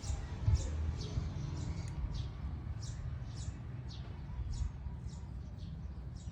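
Cockatiels chirping: a run of short, high chirps, each falling in pitch, about two to three a second, over a low steady rumble.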